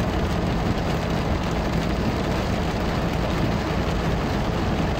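Heavy rain falling on a car's roof and windshield, heard from inside the car, over the low steady hum of its engine.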